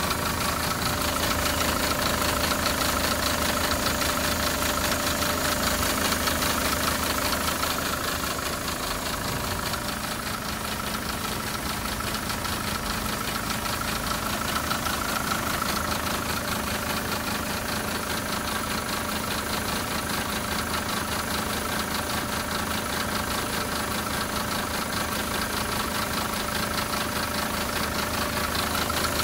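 SsangYong Korando Sports four-cylinder diesel engine idling with a rapid, steady, repeated knocking noise, which the owner calls a 쾅쾅쾅 bang. The owner asks whether it comes from the timing chain or the external belt auto-tensioner.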